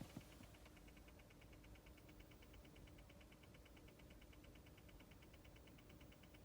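Faint, fast, even clicking, about ten ticks a second, from a 2018 Honda Odyssey Hybrid, over a steady low hum, with two soft knocks at the start. It is the abnormal 'kachi-kachi' noise that can keep going for about five minutes after the engine is switched off; its cause has not been found.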